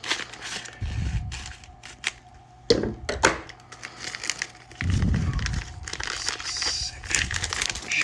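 Plastic wrapping crinkling and tearing as it is slit with a knife and pulled off a balisong by hand, with many small crackles and a couple of duller bumps from handling.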